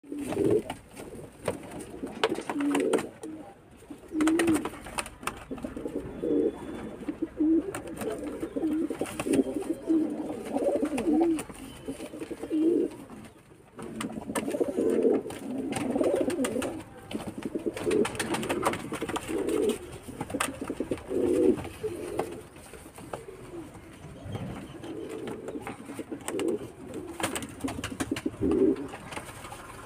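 Domestic pigeons cooing over and over during a fight, with occasional bursts of wing flapping.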